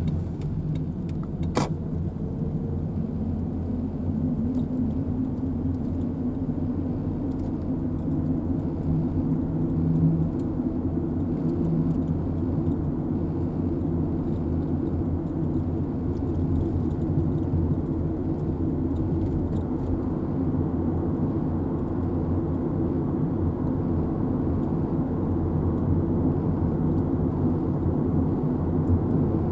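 Car driving at a steady pace: an even, low engine and road rumble, with one short click about a second and a half in.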